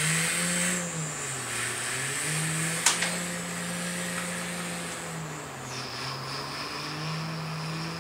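A man's voice imitating a heavy-equipment engine: a steady, low droning hum that dips and rises in pitch like an engine working under load. There is one sharp click a little under three seconds in.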